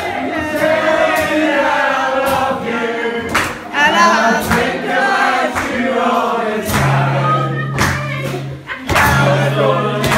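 A group of voices singing a folk song together with a woman's voice at the microphone and a strummed acoustic guitar. It sounds like a pub audience joining in on the chorus.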